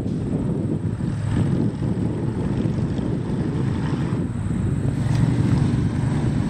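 Steady low rumble of jet aircraft engines from F-16s flying out of sight.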